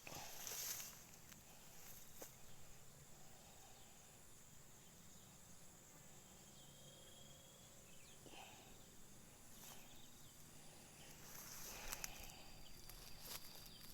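Faint rural outdoor ambience: a thin steady high tone, as of insects, with a few soft brushing or rustling sounds about a second in, midway and near the end.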